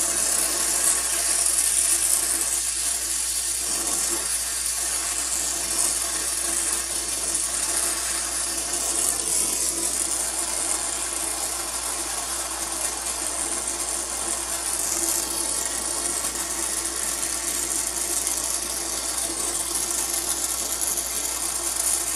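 A brazing torch's flame hissing steadily while it heats a copper refrigerant line joint as 15% silver solder is fed in and drawn into the fitting's cup.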